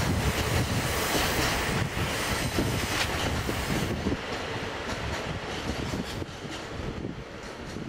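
Diesel-hauled freight train of container wagons behind a DD51 locomotive rolling away on jointed track, its wheels knocking over the rail joints. The sound thins out about halfway through and dies away steadily as the train recedes.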